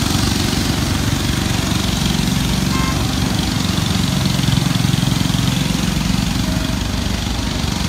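Diesel engine of a Hidromek 220 tracked excavator running steadily, swelling slightly about halfway through.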